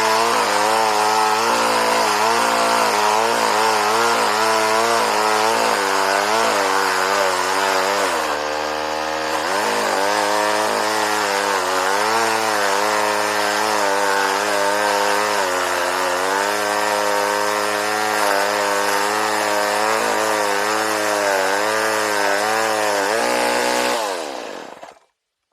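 Homelite Super 2 two-stroke chainsaw running near full throttle while cutting through wood, its engine speed wavering and sagging for a moment about eight seconds in. The cut is slow because the chain is dull. The engine dies away about a second before the end.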